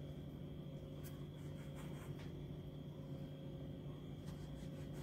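A few faint clicks and soft rubbing as a drinking glass is pressed through dough to cut rounds against the countertop, with the rounds lifted out by hand, over a steady low hum.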